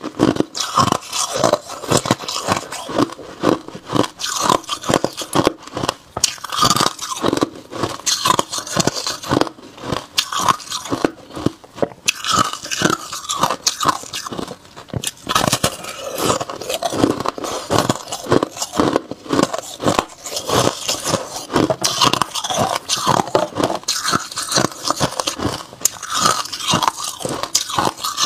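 A person biting and chewing a chunk of white ice, close to a clip-on microphone. Dense, irregular crunches come several times a second without pause.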